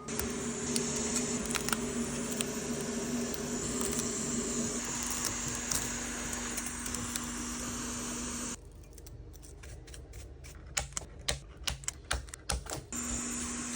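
A steady mechanical hum with a high hiss that cuts off abruptly about eight and a half seconds in. A run of light, irregular clicks and taps follows, and the hum's low tone briefly returns near the end.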